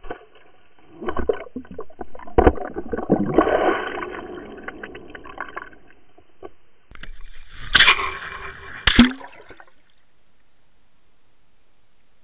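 Water rushing and gurgling over an underwater fishing camera as it is pulled through the water, with irregular knocks and rattles against its housing. Two louder sharp knocks with a rush of hiss come about 8 and 9 seconds in, then only a faint steady hiss.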